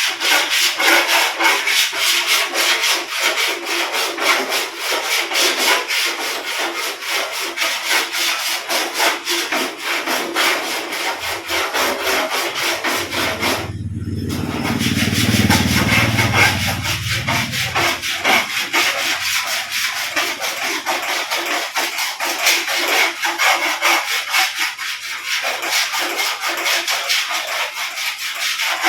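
Body file rasping in steady, repeated strokes across a dented sheet-metal car panel, shaving the high spots so the low points of the dent show up. The strokes pause briefly about halfway, and a low rumble comes in under them for a few seconds.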